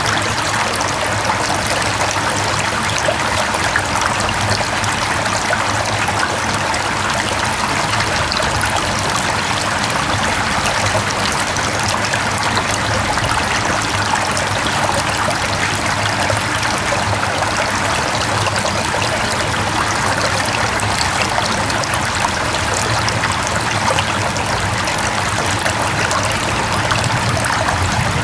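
Mountain valley stream: water running and splashing over rocks in a steady, dense rush.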